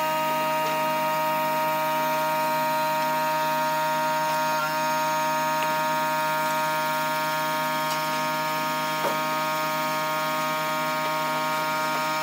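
A steady droning hum at one fixed pitch, holding unchanged throughout.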